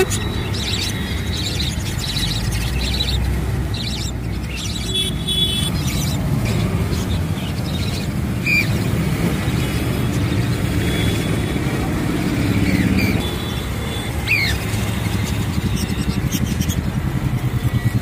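A vehicle engine runs steadily under general street noise. Short high bird chirps break through, once about halfway and again later on.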